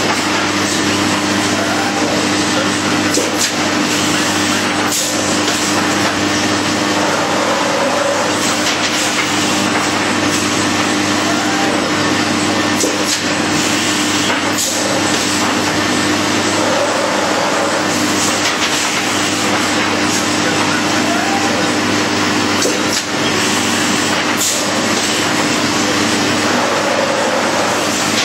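Textile slitting and cross-cutting machine running steadily, with a loud, even mechanical noise over a steady hum and occasional clicks.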